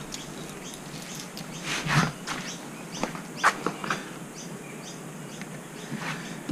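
Birds chirping repeatedly in the background, with a few light clicks and knocks of small hardware being handled, the loudest about two seconds in.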